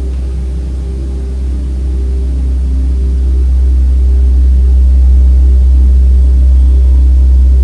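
Ambient meditation music: a deep, steady bass drone with softer sustained tones above it. It swells in loudness over the first few seconds, then holds.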